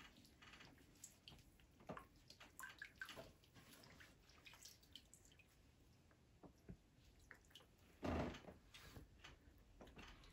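Faint drips and small splashes of water as a child's feet are washed with a wet washcloth over a small plastic tub, with one louder, brief sound about eight seconds in.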